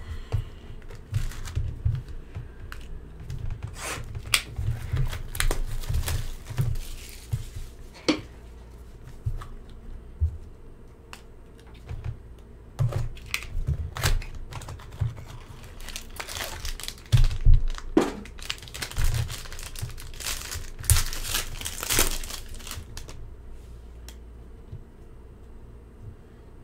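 A sealed hobby box of hockey trading cards being torn open by hand, then its foil pack wrapper ripping and crinkling, in many sharp irregular crackles and tears. The loudest rips come about two-thirds of the way through.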